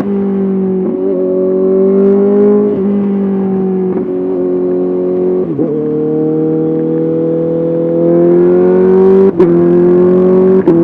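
Honda CBR 650R inline-four engine running through an SC-Project SC1R exhaust on the move, its note holding or rising slowly. The note breaks briefly several times and steps down in pitch about halfway through.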